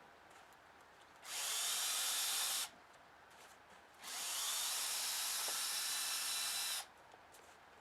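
Cordless drill-driver backing screws out of the wooden concrete form, run in two bursts: a short one of about a second and a half, then a longer one of about three seconds.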